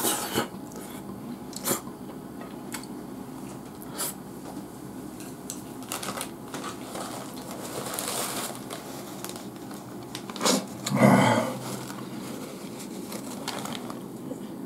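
Eating a salt-grilled flounder with chopsticks: scattered sharp clicks of chopsticks on fish and plate, with soft picking and chewing noises. About ten and a half seconds in come two louder knocks, the loudest sounds here.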